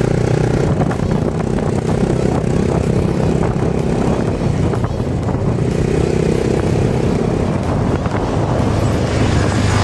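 Small motor scooter running steadily while riding along a road, its engine hum mixed with wind and tyre noise.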